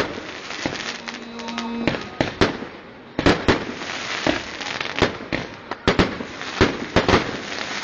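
Fireworks going off: a string of sharp bangs and crackles, coming thick and fast from about three seconds in.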